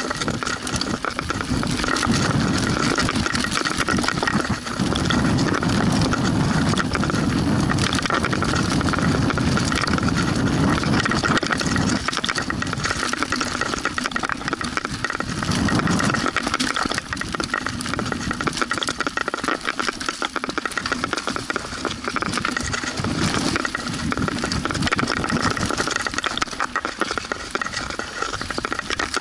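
Mountain bike running down a rough dirt singletrack: tyres on dirt and roots, with the chain and frame rattling continuously. A steady buzz sits under the rattle, and a heavier low rumble fills the first half.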